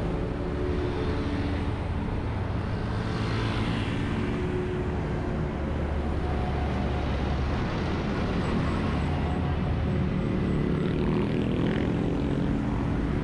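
Highway traffic: a steady low rumble and engine drone of motor vehicles on the road, with one vehicle sweeping past about three to four seconds in.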